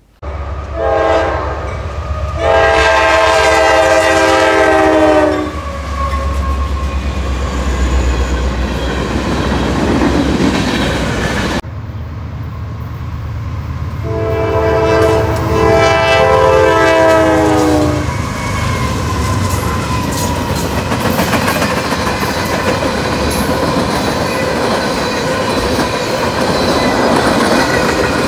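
Freight locomotive's multi-chime air horn sounding at a crossing: two blasts near the start, then another long blast about halfway through. The steady rumble and clatter of the freight cars rolling past fills the rest.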